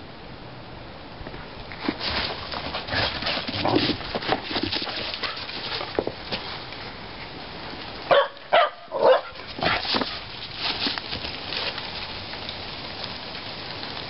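A young dog barking three times in quick succession about eight seconds in, with footsteps crunching through snow and dry leaves before and after the barks.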